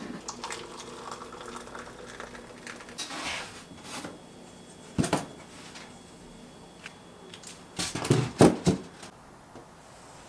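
A cotton tea towel rustles as it is tucked over a stainless steel bowl of bread dough to cover it for proofing. There is a sharp click about five seconds in and a short cluster of loud knocks and clatter near the end. A low steady hum fades out about two and a half seconds in.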